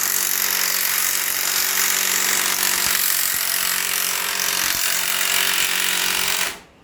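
A power tool running steadily with a hum, then cutting off abruptly about six and a half seconds in.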